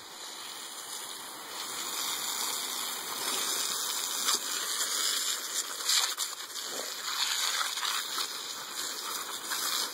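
Garden hose spraying water in a steady gush, growing louder over the first two seconds.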